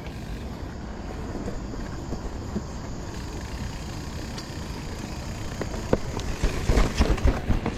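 Specialized Turbo Levo electric mountain bike being ridden onto a trail: steady rolling and wind noise, turning from about six seconds in into a clatter of knocks and rattles as it goes over rougher ground.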